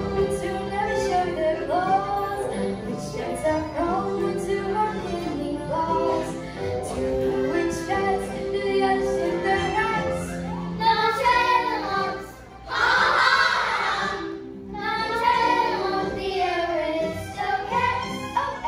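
A group of children singing a stage-musical song over a backing track, with a short loud burst of noise about two-thirds of the way through.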